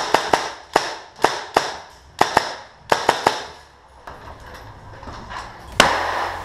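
Tippmann M4 airsoft rifle firing single shots on semi-auto: sharp cracks at irregular spacing, often two or three in quick succession, with a pause in the middle. Near the end comes a louder bang followed by a short rushing hiss.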